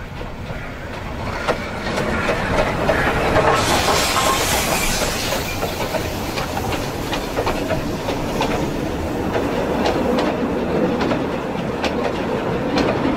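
Steam-hauled freight train passing close by. The sound grows loud about four seconds in as the steam locomotive goes past, then the goods wagons rumble and clatter over the rail joints in a run of sharp, irregular clicks.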